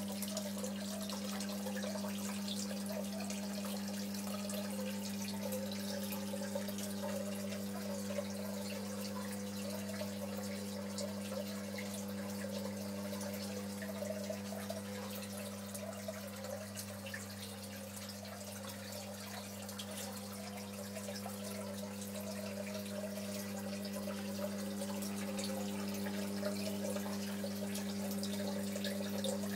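Aquarium sump equipment running: a steady electric hum from the pumps and protein skimmer, with water trickling and splashing over it.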